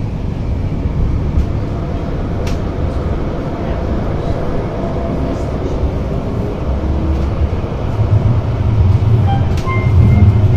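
Running noise of a Luxembourg CAF Urbos tram heard from inside the car as it moves along its track: a steady low rumble that gets louder over the last couple of seconds, with a couple of light clicks.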